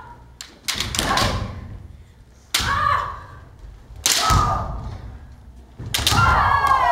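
Kendo sparring: four sharp strikes of bamboo shinai and stamping feet on a wooden floor, mixed with loud kiai shouts, the last a long shout falling in pitch near the end.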